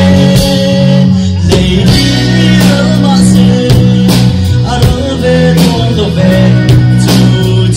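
Live band playing loudly through a PA: drum kit, bass guitar, guitars and keyboard, with a male vocalist singing into a microphone.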